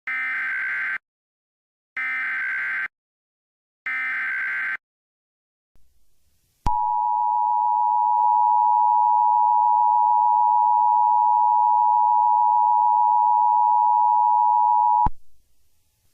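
Emergency Alert System alert tones: three identical one-second bursts of the buzzing SAME digital header, then after a short gap the two-tone attention signal (853 and 960 Hz together), a steady harsh tone held for about eight seconds that cuts off abruptly.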